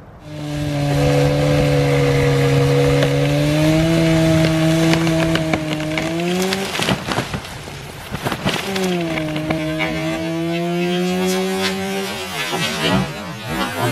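Gas chainsaw running at high revs, its engine pitch rising a little. About halfway through it bogs into a cut through Osage orange wood for a couple of seconds, then revs free again and drops off near the end.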